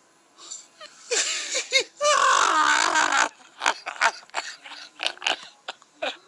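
A voice altered by the Voice Changer Plus app, making wordless noises: two long warbling sounds in the first half, then a run of short, choppy bursts.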